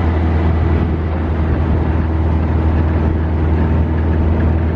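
Dune buggy engine running at a steady cruise as the buggy drives along, a constant low drone under road and wind noise.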